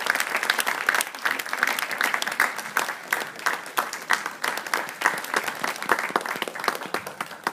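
Audience applauding, a dense run of clapping that begins to thin out and fade near the end.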